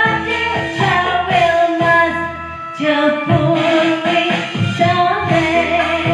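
A woman singing a slow melody with wavering, vibrato-laden held notes over instrumental backing music.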